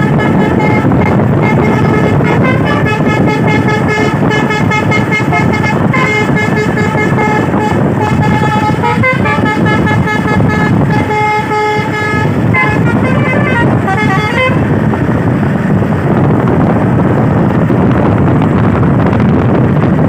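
Telolet basuri multi-tone truck horn playing a quick tune of stepping notes, stopping about three-quarters of the way through. The truck's engine and road noise run loud underneath and carry on after the horn stops.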